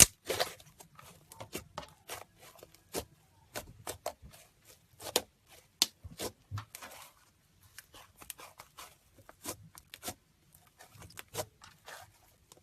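Slime being handled: irregular sticky clicks and crackles, a few a second.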